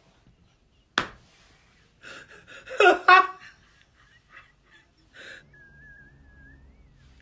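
A man laughing hard in breathy, gasping bursts, loudest around the middle, after a single sharp smack about a second in. A faint, thin wavering tone sounds near the end.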